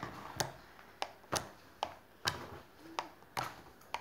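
Handful of PVA-glue slime being squeezed and kneaded, letting out sharp wet pops and crackles about twice a second.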